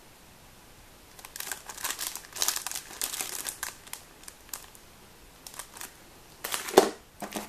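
Plastic packaging crinkling and rustling as it is handled for a few seconds, followed by scattered small clicks and a single sharp knock near the end.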